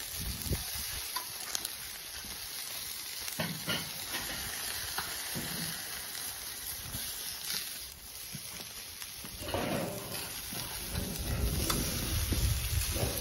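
Meat steaks sizzling on a charcoal kettle grill, with a few sharp clicks of metal tongs against the grate as the pieces are turned. A low rumble grows louder from about ten seconds in.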